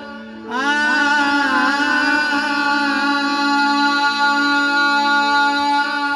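Naat music with electronic keyboard accompaniment: a long held melodic note slides up about half a second in, wavers, then holds steady over a steady low drone.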